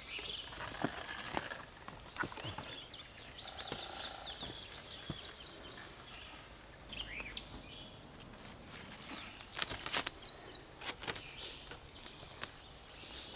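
Clear plastic wrap crackling and rustling in scattered bursts as it is unrolled and stretched around a wooden pole frame, with a few handling knocks; the loudest crackles come about ten and eleven seconds in. Birds chirp in the background.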